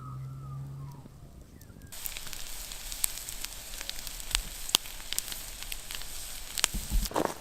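Campfire crackling and popping, with a steady hiss and many sharp snaps. It starts abruptly about two seconds in, after a faint wavering call over a low hum.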